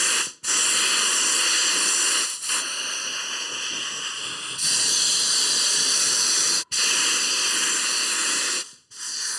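Spray gun hissing steadily as it sprays contact adhesive, in long trigger pulls with brief stops about half a second in and near seven seconds, and a softer stretch in between; it cuts off near the end.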